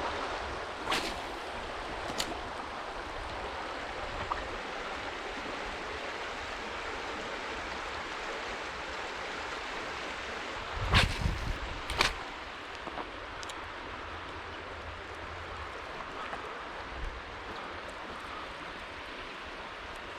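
River water flowing steadily, with a few short knocks, the loudest pair about eleven and twelve seconds in.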